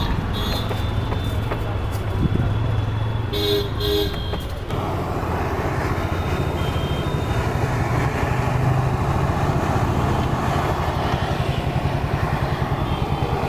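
Sattu-stuffed litti (kachori) deep-frying in a kadhai of hot refined oil, a steady even sizzle, over the low rumble of street traffic. A vehicle horn toots twice about three and a half seconds in.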